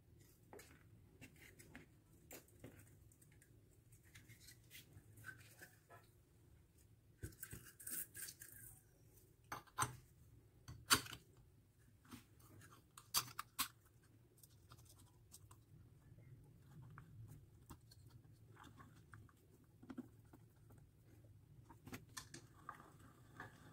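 Faint handling sounds of a homemade coil-winding jig's small metal parts being fitted by hand: scattered light clicks and taps with brief scraping rustles, and a few sharper clicks in the middle.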